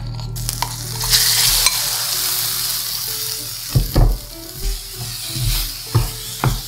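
Thin slices of marinated pork belly hitting a hot stainless-steel frying pan and sizzling loudly, the sizzle swelling about a second in. From about halfway a plastic spatula scrapes and knocks the meat around the pan, several sharp strokes over the sizzle.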